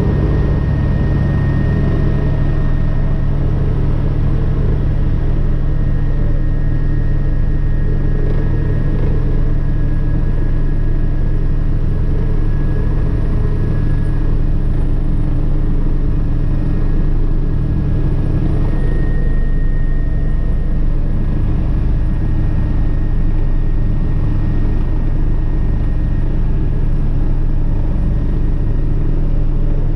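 Agusta AW119 single-engine helicopter running at full rotor speed, heard from inside the cabin with the doors open: a steady, loud drone of rotor and turbine with a thin high whine above it, while power is raised for a hover check.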